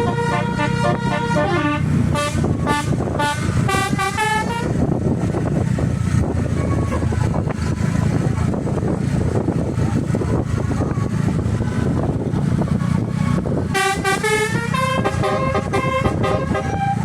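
Bus telolet horn, a multi-tone air horn, playing a quick stepping tune for the first few seconds and again near the end, over a steady low rumble.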